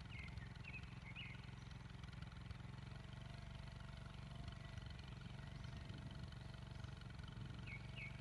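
Steady low engine hum, typical of a vehicle idling by the roadside. A few short high chirps come near the start and again near the end.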